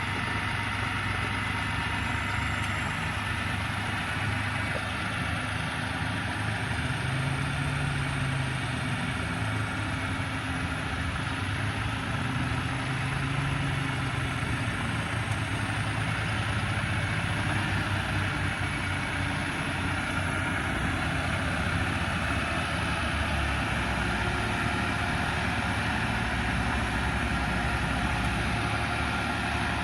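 Heavy engine running steadily at an even pitch, with no revving up or down.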